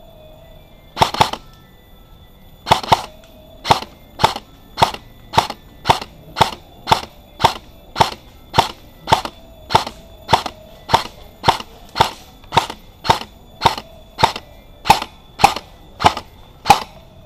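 Airsoft gun fired close by in single shots: a quick pair about a second in, then a steady string of about two sharp shots a second.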